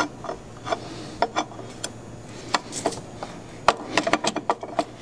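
Hooked pry bar (lady slipper) scraping and clicking against a carbon-seized EGR valve on a 6.0 L Powerstroke diesel as it is worked back and forth to break it free. The metal clicks and knocks are irregular and come thicker and louder in the last second or so.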